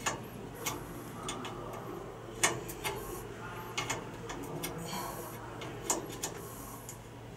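Spanner working the nut and bolt that join an aircraft elevator control rod to its lever: irregular metallic clicks and taps as the bolt is undone, the sharpest about two and a half seconds in.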